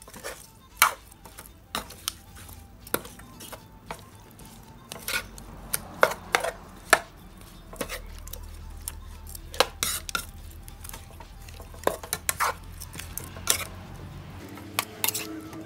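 A white plastic spatula stirring and tossing raw tilapia pieces with curry paste in an unheated non-stick pan, giving irregular knocks and scrapes against the pan.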